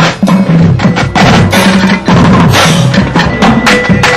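Marching drumline playing loud and fast: snare drums in rapid, tightly clustered strokes over low drum notes that step up and down in pitch.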